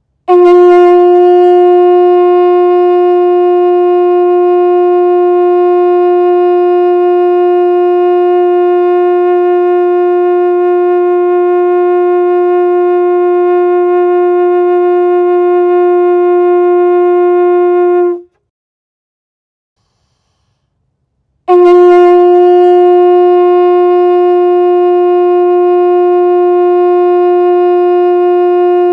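Conch shell horn blown in two long blasts, each held at one steady pitch with a bright, buzzy edge. The first lasts about eighteen seconds and stops; after about three seconds of silence a second blast starts and is still sounding near the end.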